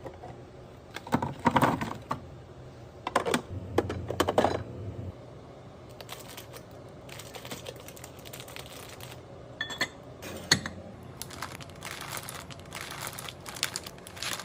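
Irregular clicks, taps and crinkling rustles of food packaging and plastic containers being handled and set down, in clusters with short pauses between them.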